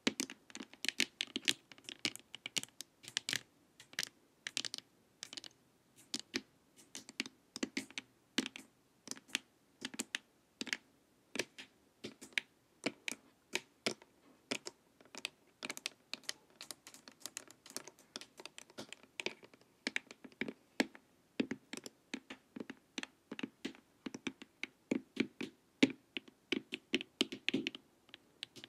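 Long fingernails tapping quickly and irregularly on a hollow hard-plastic face mask, a steady stream of sharp clicking taps.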